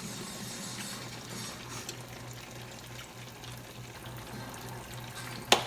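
Chicken frying in a pan: a steady sizzling hiss with small crackles. A single sharp clack near the end.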